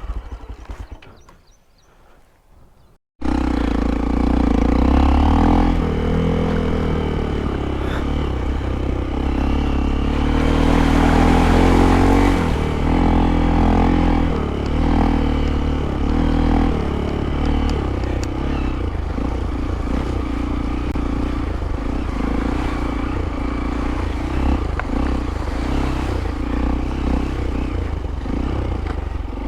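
Motorcycle engine running and revving, its pitch rising and falling, starting abruptly about three seconds in after a short faint lull.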